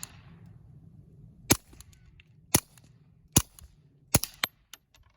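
Four suppressed .22 LR shots through an AAC Prodigy 22 suppressor, sharp cracks about a second apart, followed by a few faint clicks. Described as pretty damn quiet.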